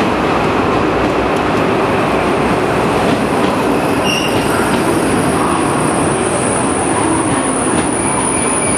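A sleeper express's passenger coaches rolling past along the platform as the train pulls in and slows. A high steady squeal sets in about halfway through.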